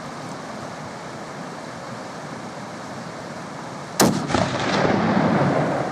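A single hunting rifle shot about four seconds in: a sharp crack followed by a long rolling echo off the surrounding rock bluffs that dies away over about two seconds.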